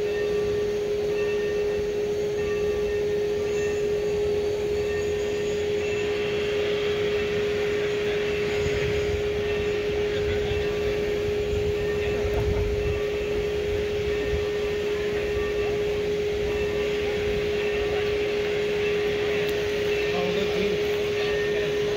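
Santa Fe 2926, a 4-8-4 steam locomotive, running with a steady whine and a low rumble, and a faint repeating ring above it.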